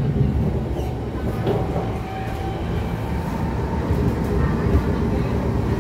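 Inside a C151 metro train car running at speed on an elevated track: a steady rumble of the wheels and running gear on the rail, with a faint whine from the traction motors.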